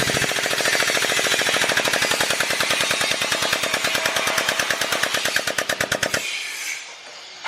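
A power tool hammering at metal with rapid repeated strikes, many a second, spacing out a little near the end before it stops about six seconds in.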